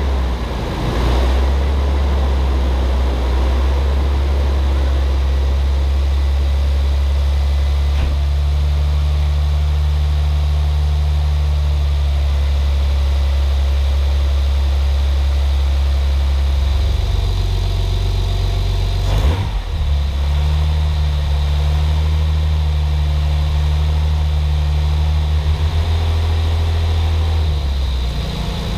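Nissan 300ZX Twin Turbo's 3.0-litre twin-turbo V6 idling steadily just after starting, warming up with a freshly installed aluminum radiator. The idle note shifts once past the middle, with a single brief knock shortly after.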